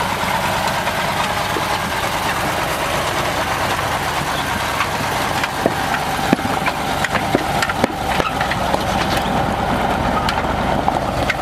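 Heavy truck's diesel engine idling steadily, with a few sharp clicks about halfway through.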